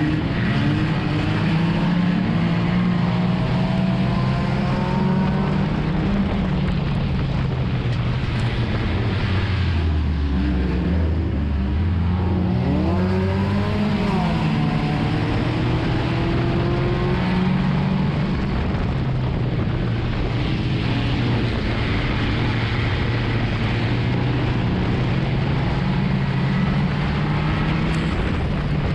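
Enduro race car's engine running hard under load, heard from inside the cabin. Its pitch shifts as the throttle is worked, dropping lower about ten seconds in and then climbing back. Higher engine notes of other race cars rise and fall over it.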